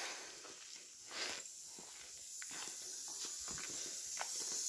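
Footsteps on a path: scattered light clicks and scuffs, with a brief louder rush of noise about a second in, over a steady high hiss that grows stronger near the end.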